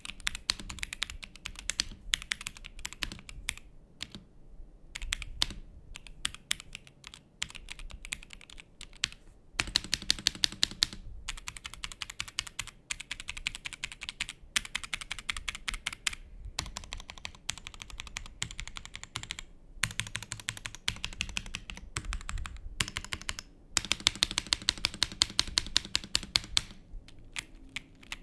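Fast typing on a Rexus Daxa M82X Ultimate gasket-mount mechanical keyboard with a polycarbonate plate and Poron foam dampening. Keystrokes clatter in quick runs broken by a few short pauses, showing off the keyboard's sound profile.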